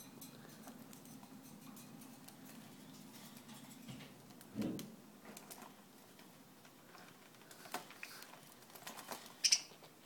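A lorikeet and a budgie bathing in a shallow plastic tub of water: light splashing and pattering with scattered small clicks, a dull bump about halfway through and a short, sharp, high sound near the end.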